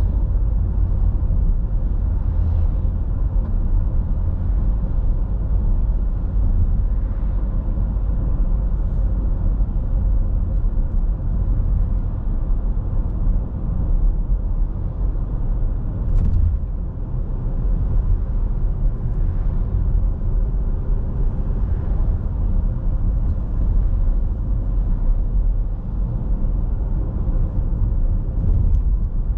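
Steady low rumble of a car driving along a paved road, engine and tyre noise heard from inside the cabin, with a brief louder rush about halfway through.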